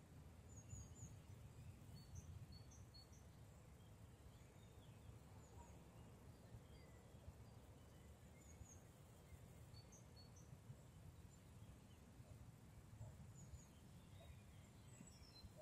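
Faint forest ambience: scattered short, high bird chirps over a low, steady rumble.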